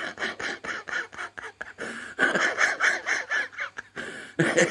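A man chuckling and laughing softly under his breath, in a quick run of short breathy laughs that grow louder about halfway through.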